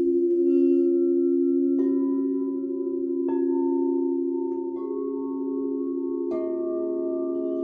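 Crystal singing bowls struck one after another with a mallet, four strikes about a second and a half apart, each adding a new note over the earlier tones, which keep ringing and slowly waver against each other.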